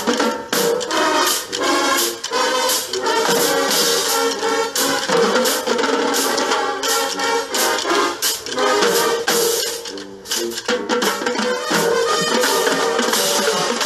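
High school marching band playing live: brass with a steady percussion beat, briefly dropping in level about ten seconds in before the full band comes back in.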